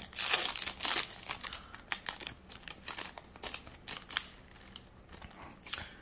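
Foil trading-card booster pack being torn open and crinkled by hand, loudest in the first second, then lighter, scattered crinkles and clicks as the wrapper is handled.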